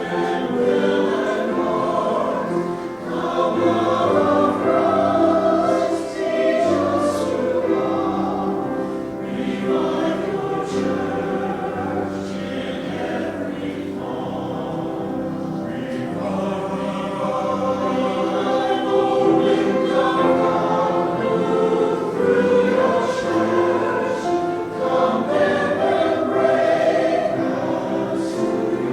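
A choir singing sacred music in the church, with long held notes.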